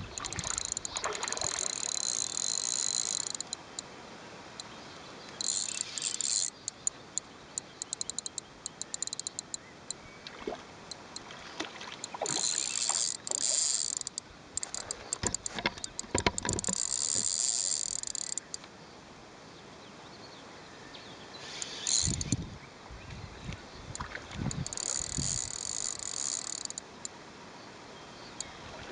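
A hooked carp splashing at the surface close to the bank, with several separate splashes. Insects are buzzing over it in about six high-pitched bursts of one to three seconds each.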